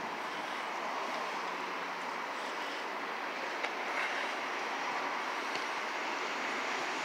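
Steady city street traffic noise, an even wash of sound, with a few faint clicks.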